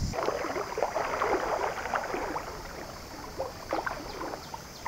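Water splashing and gurgling in small irregular splashes, thick for the first two seconds or so and then fewer.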